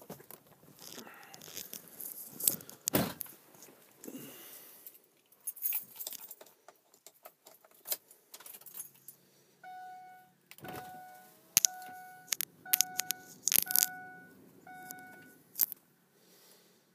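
Keys jangling and sharp clicks, then from about ten seconds in a repeating dashboard warning chime in a 2005 Ford Excursion, about seven evenly spaced tones, before the engine is started.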